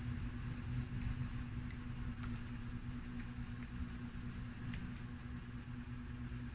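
A steady low hum, with a few faint ticks and crinkles as a small paper condiment sachet is handled, torn and shaken out.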